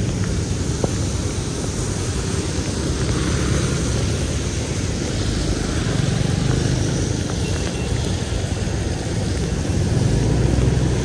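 Steady rumble of riding along a wet street in the rain: vehicle and road noise with wind on the microphone, no single event standing out.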